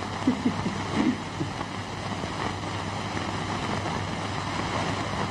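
Steady hiss and low hum of an old film soundtrack, with a few faint, muffled voice sounds in the first second and a half.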